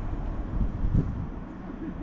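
Wind buffeting the microphone as a steady low rumble, with one short thump about a second in.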